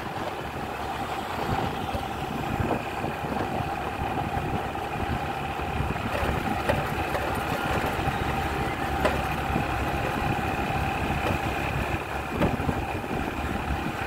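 Motorbike engine running steadily as it rides along a city street, with a steady whine and road noise.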